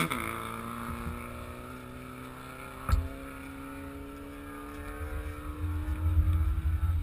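A car engine drops off a rev at the start, then runs on with its note slowly climbing and easing again near the end. There is one sharp knock about three seconds in, and low wind rumble on the microphone near the end.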